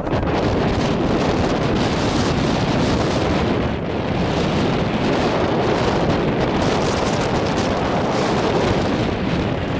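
Wind buffeting the camera microphone: a steady rushing noise with no distinct knocks or voices.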